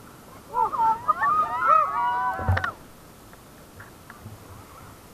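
Several banana-boat riders screaming and whooping together, with a thump about two and a half seconds in; then a steady rush of wind and water.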